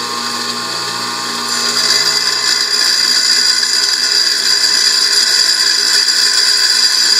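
Bench saw running with a steady whine while its blade grinds a slit into a thick blue glass ring; the grinding grows louder and harsher about a second and a half in.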